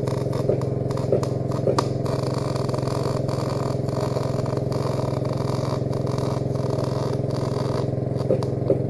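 Engine-driven welder's engine running at a steady speed, a constant low drone, with a few sharp clicks in the first two seconds and again near the end.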